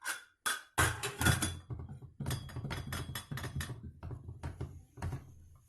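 Kitchen handling noise: a string of irregular knocks and clatters, with a quick run of light taps about two seconds in.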